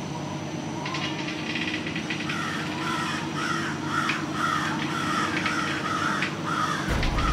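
A flock of crows cawing, with repeated short calls starting about two seconds in, roughly two a second, over a steady low hum.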